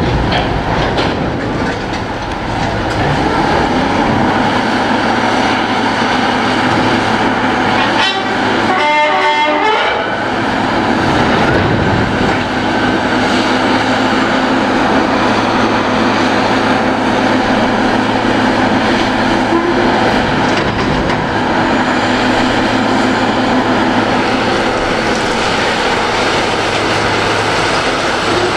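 Heavy equipment's diesel engines running under load while a derailed freight car is dragged and hoisted upright, with steady metal scraping and grinding. About eight seconds in there is a short spell of rapid clanking.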